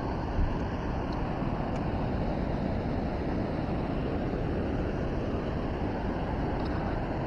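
Steady rushing of fast-flowing river water below a dam outflow.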